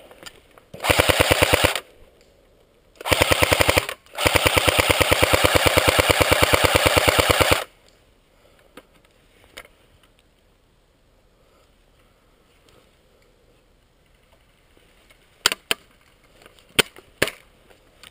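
Airsoft gun firing on full auto in three bursts of rapid, evenly spaced shots, the last about three and a half seconds long. A few single sharp cracks follow near the end.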